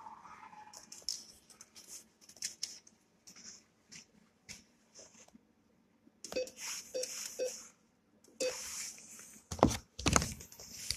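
PIN being keyed in on an NCR cash machine's keypad: four short beeps with key clicks, spaced about half a second to a second apart. Near the end come a couple of louder knocks as the entry goes through and the machine starts processing.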